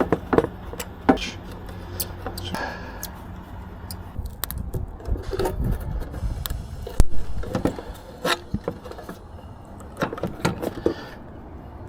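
Scattered clicks, taps and knocks of tools and parts being handled, the loudest knock about seven seconds in, over a low steady hum.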